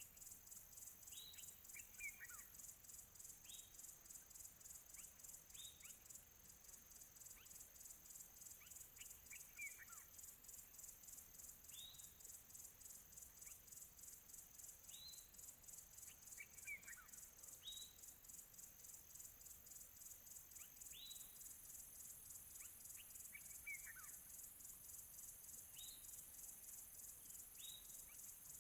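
Faint nature ambience: a steady, fast-pulsing high insect trill, with short downward-sliding bird whistles every two to three seconds, some coming in quick pairs.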